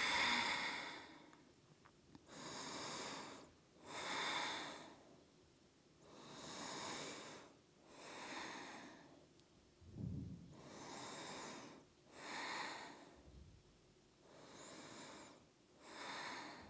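A woman breathing slowly and deeply, with audible inhales and exhales coming one after another every couple of seconds, while she holds a seated stretch.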